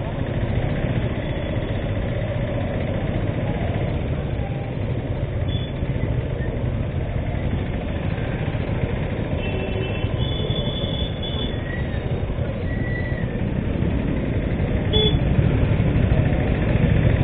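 Motorcycle engine running at low speed in slow, dense traffic, a steady low rumble that gets louder near the end. A few short high-pitched beeps come through now and then.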